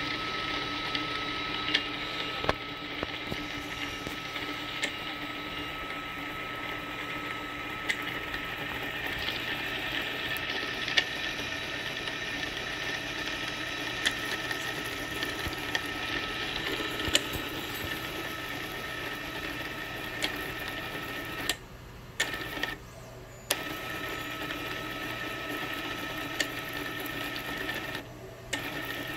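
Stepper motor driving a 3D-printed plastic planetary gearbox: a steady electric whine mixed with the plastic gears meshing, with occasional sharp clicks. It stops briefly three times in the last third, a pause about two-thirds of the way in, a second just after it, and one near the end.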